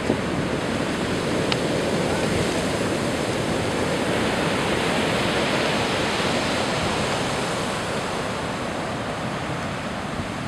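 Heavy storm surf from a big post-hurricane swell, breaking and washing up the beach as a continuous rush of white water. It swells in the middle and eases a little near the end.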